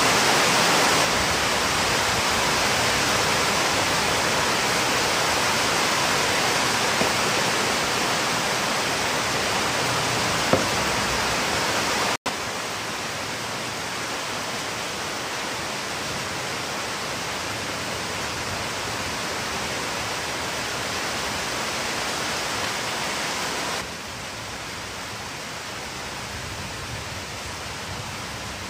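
Steady broad hiss with no distinct tones or rhythm, dropping out for an instant about twelve seconds in and stepping a little quieter near the end.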